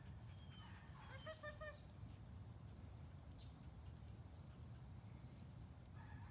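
Near silence, with a faint steady high hiss and, about a second in, a quick run of about four faint pitched animal calls.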